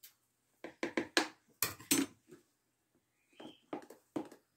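A spoon knocking and clinking against a plastic blender jar of cake batter while baking powder is added and stirred in: a run of irregular sharp knocks, the loudest two near the middle.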